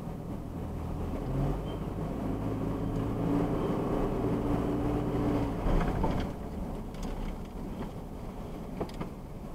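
Car driving, heard from inside the cabin: engine hum and road noise. The engine tone strengthens about a second in and eases off a little past halfway, with a few faint clicks near the end.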